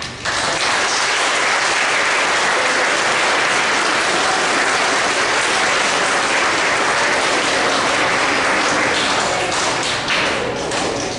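An audience applauding. The clapping starts suddenly, holds steady and dies away near the end.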